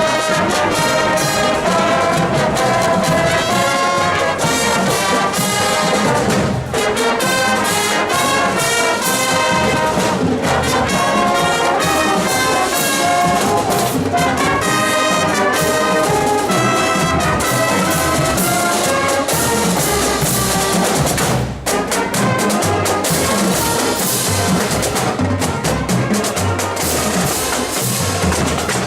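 High school marching band playing, the brass section of trumpets and trombones carrying the melody over drums, with a brief break about two-thirds of the way through.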